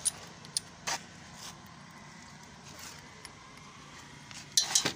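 Scattered metallic clicks and clinks of a spark plug spanner being fitted to a loader rickshaw engine's spark plug, with a quick run of louder clinks near the end.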